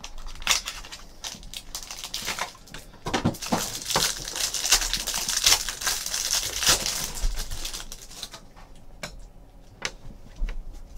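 Thin plastic wrapper on a pack of trading cards crinkling and tearing as it is pulled off the stack, loudest in the middle, then a few light clicks as the bare cards are handled.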